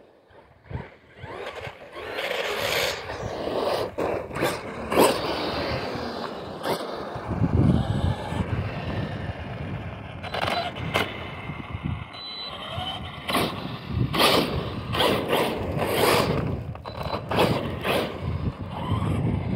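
Arrma Big Rock V3 RC truck driving hard over loose gravel: tires scraping and spraying grit, with many sharp clicks and knocks of stones, starting about two seconds in.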